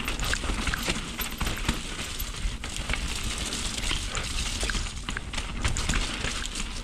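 Mountain bike riding down a rough trail: tyres clattering over rocks and roots, with chain and frame rattling in many short irregular knocks, over a steady rumble of wind on the camera's microphone.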